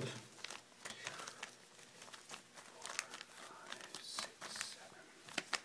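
Clear plastic bags holding coiled wires crinkle and rustle as they are handled and shuffled, with a run of irregular crackles.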